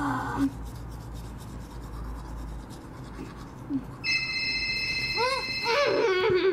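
A phone ringtone of steady high electronic tones, cutting out shortly after the start and ringing again from about four seconds in, with a person groaning in exasperation over it near the end. In between, soft rubbing and scratching of a doll being handled.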